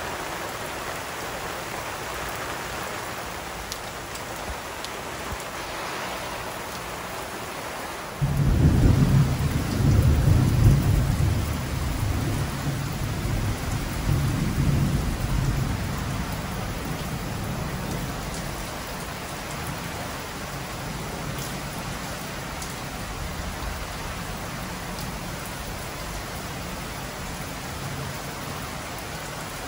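Steady rain falling on a lawn and patio. About eight seconds in, thunder breaks in suddenly with a deep rumble that rolls on for several seconds and slowly fades.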